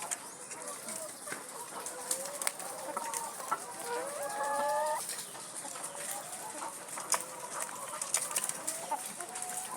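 Laying hens clucking and calling, with one drawn-out call about four seconds in and scattered sharp clicks and taps.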